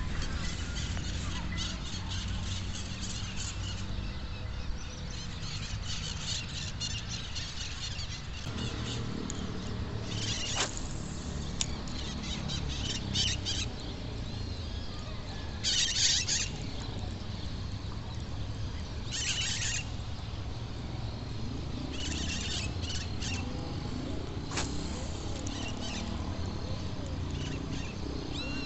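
Birds chirping and calling at intervals, in short high-pitched bursts, over a steady low rumble.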